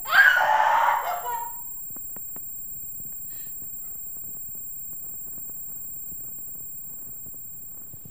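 A woman screams in distress for about a second and a half, loud and shrill, and the scream cuts off. Quiet steady hiss follows, with a faint high steady tone underneath.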